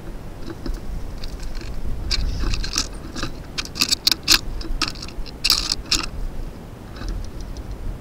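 Birds feeding at a snow-covered birdbath: a quick run of short, sharp, high ticks starting about two seconds in and ending around six seconds, over a low wind rumble.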